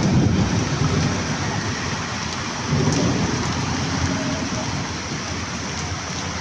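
Heavy rain falling steadily, with a low rumble that swells at the start and again about three seconds in.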